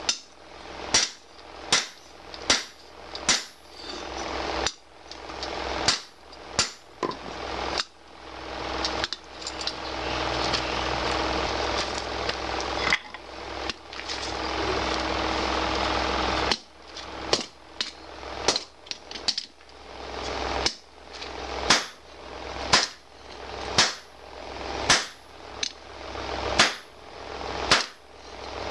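Hand hammer striking a red-hot 52100 bearing-steel parang blade on a steel anvil block, sharp blows about once a second. The blows stop for about seven seconds in the middle while a steady rushing noise runs, then the regular hammering resumes.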